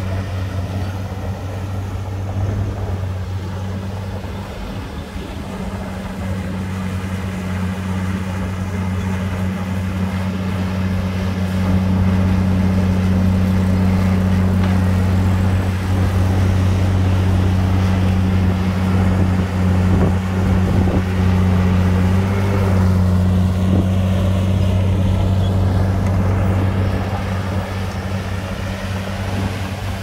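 Heavy diesel engine of an earthmoving machine running under load with a deep, steady drone. It grows louder about a third of the way through and eases off again near the end.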